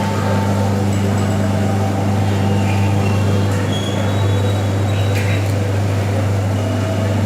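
A loud, steady low hum, with faint high bell-like tones ringing briefly a few times in the middle.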